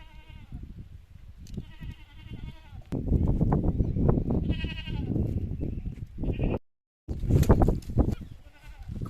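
A goat bleating with a quavering voice, several calls a second or so apart. From about three seconds in, loud rough noise covers the bleats, and it is broken by a brief dropout of total silence just before the end.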